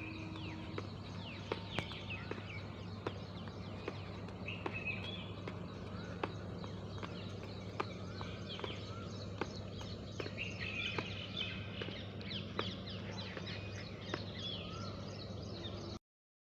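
Small birds chirping over and over outdoors, with a steady low hum beneath and scattered sharp clicks. It all cuts off suddenly near the end.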